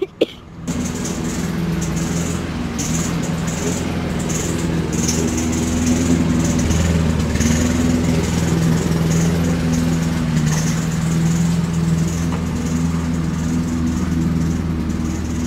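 Lawnmower engine running steadily at a constant pitch, coming in abruptly under a second in and not letting up.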